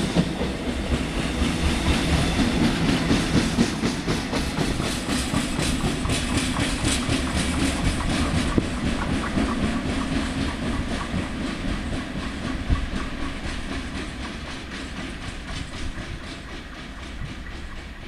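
Empty flat wagons of an engineering train rolling by with a steady clickety-clack of wheels over the rail joints, over a rumble and hiss, fading steadily as the train draws away.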